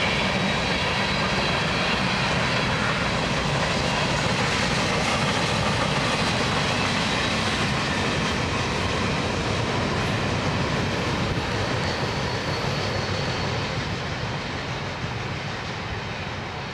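Freight cars of a long train rolling past: a steady noise of steel wheels running on the rails, which fades over the last few seconds as the end of the train moves away.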